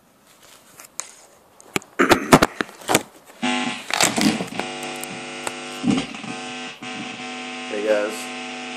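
Handling noise as the recording phone is knocked and rubbed while being set up: a run of sharp knocks and clicks. About three and a half seconds in, a steady electrical hum from the electric guitar rig sets in and carries on under a few more thumps.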